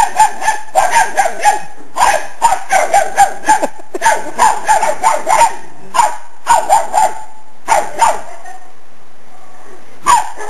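Small dogs yapping in quick volleys of high-pitched barks, several a second, in bursts separated by short pauses.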